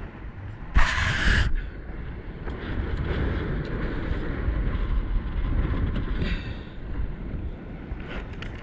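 Wind buffeting the microphone in a steady low rumble, with a short loud rush of noise about a second in.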